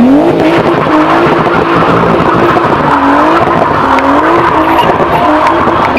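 Nissan Skyline doing a burnout: the engine is held at high revs, its pitch rising and dipping a few times, over a continuous screech of spinning tyres.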